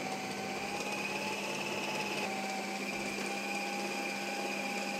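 Electric food processor motor running steadily with a high whine, its blade mincing raw chicken with onion and green chillies into a paste.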